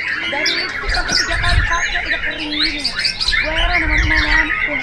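Several white-rumped shamas (murai batu) singing at once: a dense, unbroken tangle of overlapping whistles, trills and chattering phrases.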